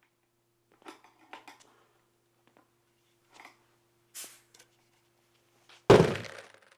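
Faint rustling and small handling clicks over a low steady hum, then, near the end, a sudden loud hit that dies away within about a second.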